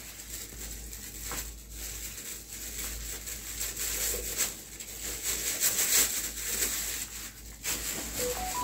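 Plastic and paper packaging rustling and crinkling as it is handled and folded, loudest around the middle. Near the end a quick run of short electronic beep tones at different pitches starts.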